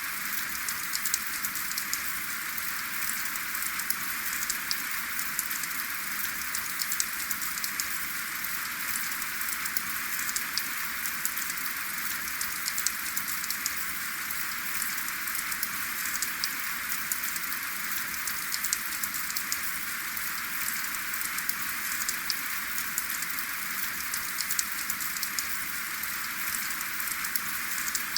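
Steady rain falling without thunder: an even hiss with many close, sharp drop hits scattered through it.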